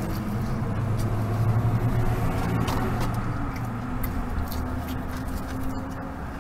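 Car engine idling, a steady low hum heard from inside the cabin, with faint crunching clicks of extra-crispy fried chicken being chewed.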